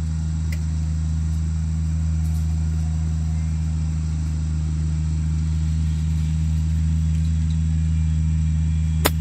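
Steady low engine hum. Near the end, a single sharp click of a golf iron striking the ball on a short chip shot from the rough.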